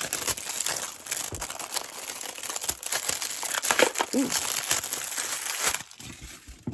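Packaging crinkling and rustling as it is handled and unwrapped, stopping suddenly near the end.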